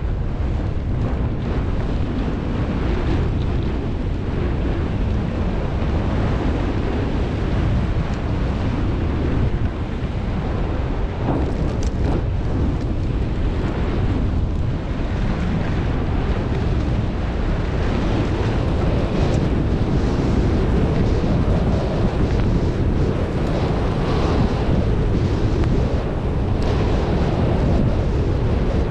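Wind rushing over the microphone of a skier's camera during a run: a steady loud rumble that swells and eases a little, with no pauses.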